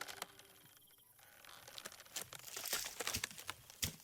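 Faint crackling and rustling: a scatter of small, sharp clicks, the sharpest just before the end.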